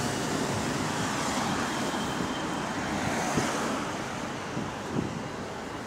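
Cooling fan of a hybrid double-decker bus running with a loud, steady rush of air, easing off slightly near the end.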